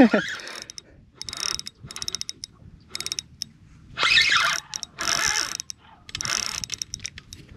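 Spinning reel's drag clicking in about six short bursts of rapid ratcheting as a big redfish pulls line against it, with the reel being cranked between the runs.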